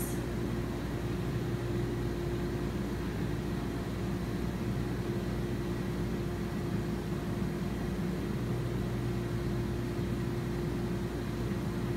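Whirlpool tub jets running, their pump giving a steady hum under the even rush of water churning beneath a thick layer of bath-bomb foam.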